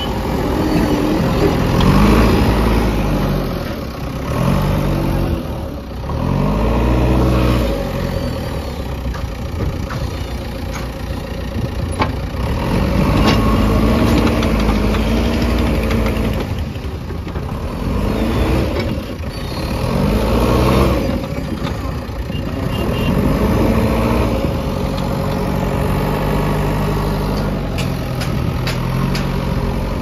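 JCB 3DX backhoe loader's diesel engine revving up and dropping back again and again as the loader digs and lifts, with a few sharp clanks between.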